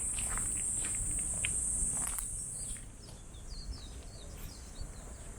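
A cicada's steady, high-pitched buzz that stops abruptly a little under three seconds in. Then a few short bird chirps follow, over scattered footsteps.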